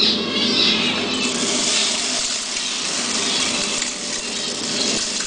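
Dirty birdseed poured into a fan-driven seed cleaning machine, a steady hiss of small seeds falling through the chute while the fan runs, filling out about a second in.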